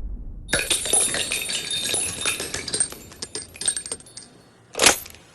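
Small metal pieces jingling and clinking in a quick, irregular run of crisp high-pitched ticks, then a single short sharp burst of noise near the end.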